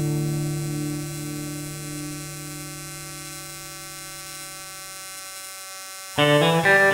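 Background music: a held chord slowly fades away, then a new guitar phrase begins near the end.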